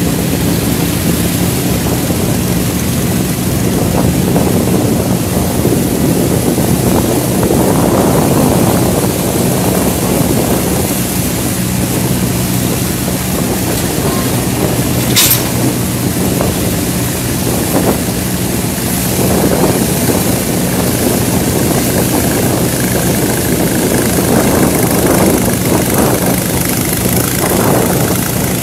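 Motorboat engine running steadily, with a constant rush of wind and water as the boat travels along the channel.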